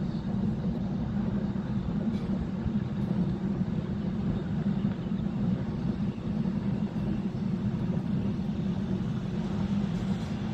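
Container freight train's wagons rolling across a stone arch viaduct, a steady low rumble.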